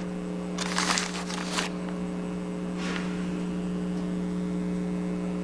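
Brief rustling and scraping of small miniature bricks being handled and set in place, a cluster about a second in and another near three seconds, over a steady low electrical hum.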